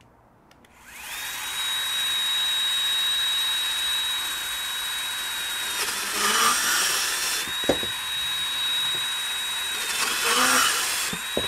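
Bosch 18V cordless compact band saw starting up about a second in and running with a steady high whine as its blade cuts through 2-inch ABS plastic pipe. The motor note sags slightly and the rasp of the cut grows louder twice, about six seconds in and again near the end, as the blade works through the pipe wall under load.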